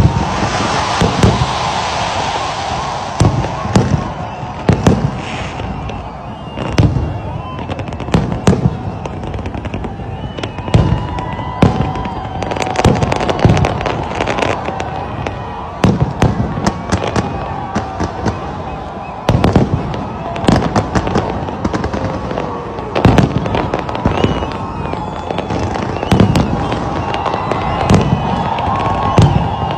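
Fireworks display: aerial shells bursting in quick, irregular succession, sharp booms one after another, many of them a second or less apart.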